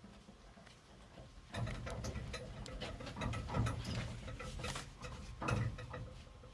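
Irregular metallic clicks, clinks and knocks of hand tools and pipe fittings being worked, with the heaviest handling between about one and a half and six seconds in.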